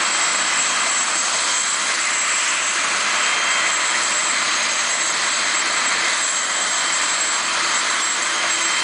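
Agusta A109 K2 rescue helicopter's turbine engines running on the ground with the rotors turning after landing: a steady high turbine whine over an even rush of rotor and exhaust noise.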